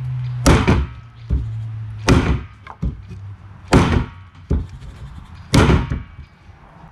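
Condor Viking machete blade chopping into a wooden branch: four heavy thunks about a second and a half apart.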